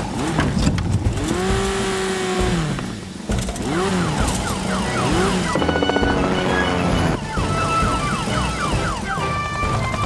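An emergency siren wails, rising and falling several times, over background music.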